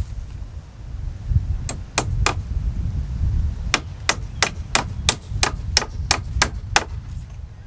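Hammer driving 16-penny nails into a wooden brace post: three strikes, a short pause, then a run of about ten strikes at roughly three a second.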